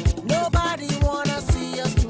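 Music with a steady drum beat, about two low hits a second, under sustained melodic lines.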